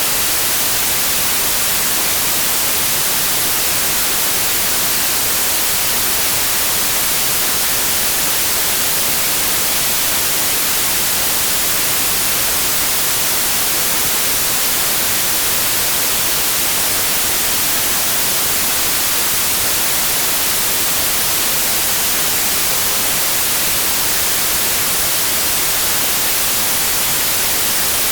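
White noise test signal: a steady, even hiss at a constant level, bright and heavy in the highs, with no change.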